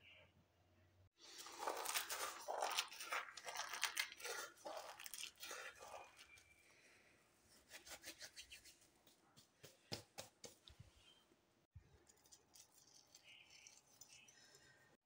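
Kitchen handling noise: rustling and crinkling from about a second in for several seconds, then a scatter of small ticks as whole spice seeds are sprinkled by hand onto a plate of sliced onion and gram flour.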